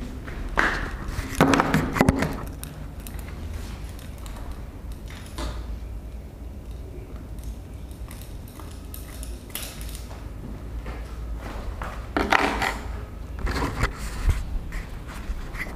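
Rustling and handling noise close to the camera, with scattered small clicks and knocks. The loudest bursts come about one to two seconds in and again about twelve seconds in.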